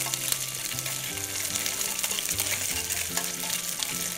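Diced red mullet and sliced garlic sizzling and crackling in hot oil in a frying pan, with a utensil stirring the pieces about.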